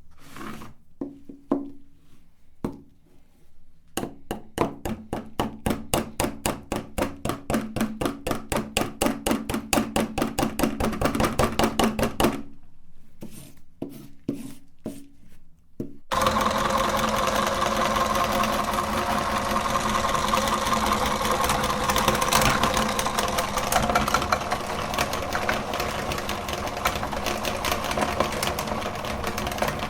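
Meat grinder working a bar of soap: first a run of regular clicks, about four a second and getting louder. Then, about halfway through, a machine sound starts abruptly and runs steadily with a dense grinding noise.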